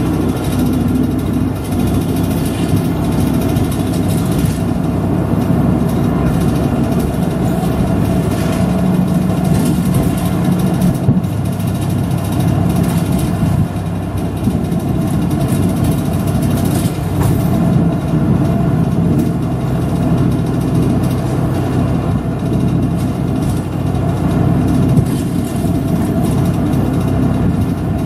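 Route bus engine running with a steady drone, heard from inside the bus.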